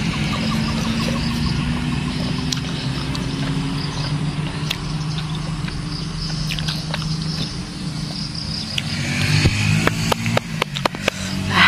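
Steady low hum of a motor vehicle engine running close by, its pitch rising slowly. A quick string of sharp clicks comes near the end.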